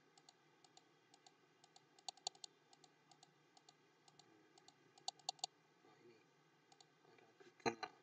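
Computer mouse clicking repeatedly, a string of short, light clicks at uneven spacing, some in quick bursts of two or three, as the font-size minus button is pressed again and again. A louder knock comes near the end.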